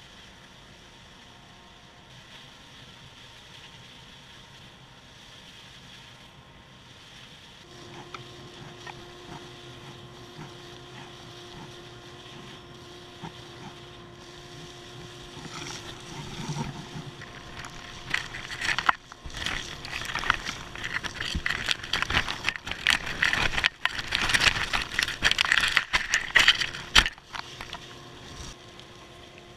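Cyclone dust collector running steadily through a flexible hose, with a steady tone joining about a quarter of the way in. From about halfway, wood shavings rattle and crackle through the hose nozzle as they are sucked up, loudest in the last third and stopping just before the end.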